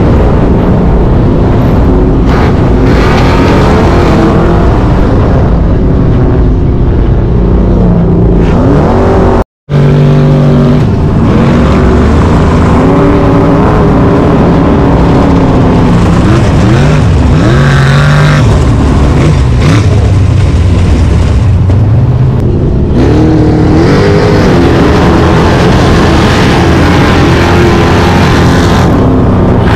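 Off-road engines revving hard at full throttle up sand dunes: a lifted Chevrolet K5 Blazer on paddle tires, then a sand buggy, then the Blazer again, the engine pitch climbing and falling with each run. The sound drops out for an instant about ten seconds in.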